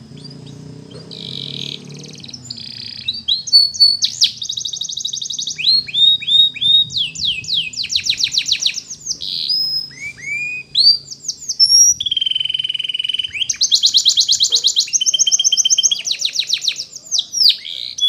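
Canary singing a long song of fast trills and rapidly repeated notes, mixed with quick downward-sweeping whistles and broken by brief pauses.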